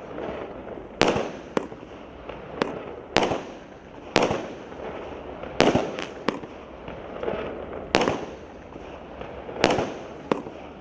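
Firework cake battery firing shot after shot: about ten sharp bangs at uneven intervals of half a second to two seconds, each trailing off in a brief hiss.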